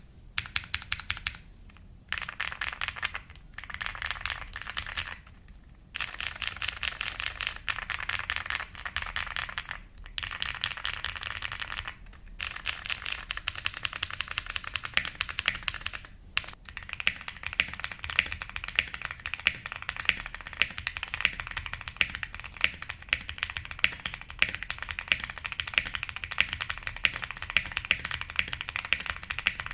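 Mechanical keyboard typed on quickly, the keystrokes coming in fast bursts with short pauses between them. About halfway through, the typing becomes a steady, unbroken run with a louder stroke about once a second.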